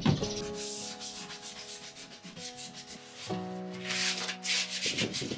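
A cloth rag rubbing wood stain onto a plywood panel in a quick run of back-and-forth strokes in the second half, over background music with held tones.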